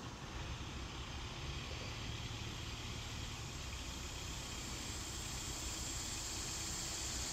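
Steady outdoor background noise: a low rumble under a high hiss that grows louder over the last few seconds.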